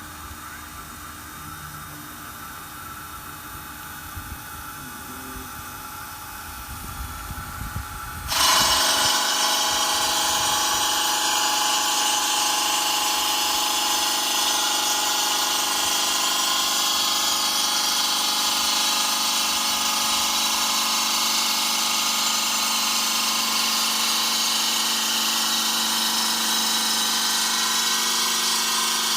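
Granite bridge saw: a quieter low machine hum, then about eight seconds in the saw starts abruptly into a loud, steady run with several held tones over a wide hiss.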